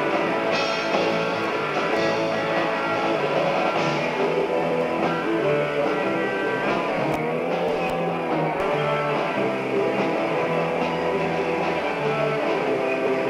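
Live rock band playing an instrumental passage without vocals, with a Stratocaster-style electric guitar to the fore over bass and drums.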